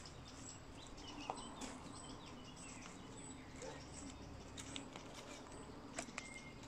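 Faint outdoor birdsong: scattered short chirps and whistles from birds in the surrounding woods over a low background hiss, with a couple of faint clicks about six seconds in.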